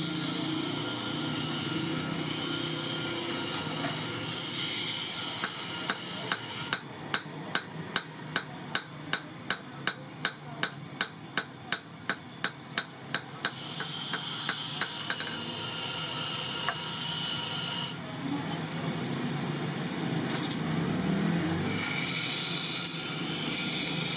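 Hand tool work on a knife: a steady noise throughout, with a run of about twenty evenly spaced light hammer taps, roughly two to three a second, through the middle of the stretch.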